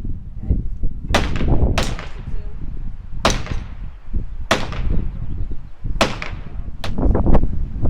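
Six gunshots fired one at a time at an uneven pace, each with a short echo, over a low rumble of wind on the microphone.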